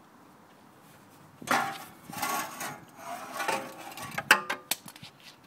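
The old exhaust pipe and muffler of a Can-Am Outlander 800 Max ATV scraping and clanking against the frame as it is pulled out, with short metallic ringing. The noise starts about a second and a half in and ends in a few sharp clanks, the loudest near the end.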